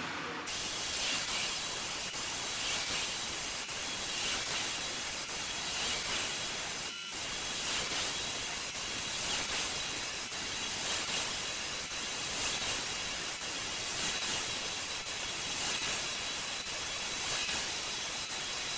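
Lägler Hummel belt floor sander running over a hardwood floor, a steady hiss-like noise that swells and eases slightly every second or two as it works. The sound cuts out for a moment about seven seconds in.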